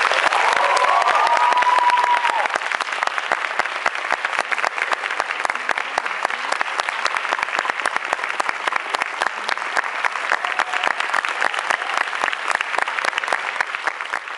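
Audience applauding a finished performance, many hands clapping densely and steadily, with a brief cheer rising over it in the first two seconds.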